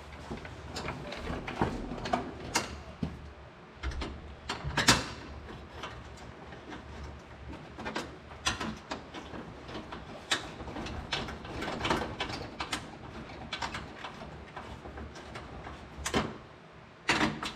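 Irregular clicks, clacks and knocks of tools and parts being handled, with a louder knock about five seconds in and two more near the end.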